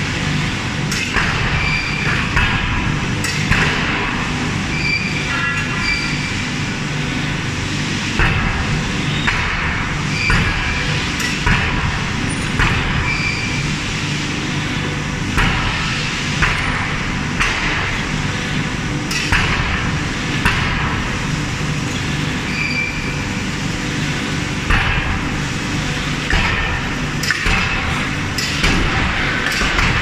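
Forging hammer striking red-hot steel, with sharp blows at an uneven pace of about one a second, many followed by a short metallic ring, over a steady low din of heavy machinery.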